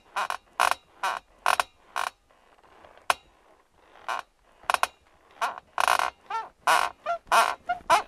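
Metal bed frame squeaking in a repeated rhythm, about two squeaks a second. It stops for a couple of seconds with one faint click, then starts again at a quicker pace.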